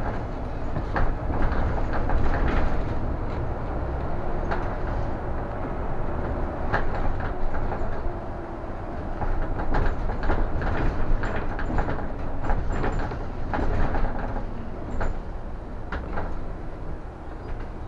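Interior of a moving city bus: a steady low rumble from the drive and road, with frequent irregular rattles and knocks from the body and fittings.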